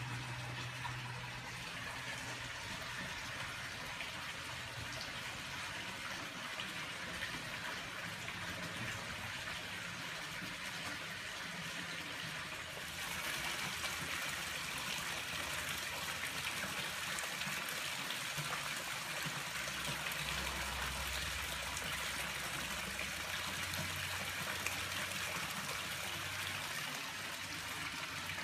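Steady trickle and splash of running water from a backyard swimming pool, with a faint low hum underneath. It gets louder about halfway through.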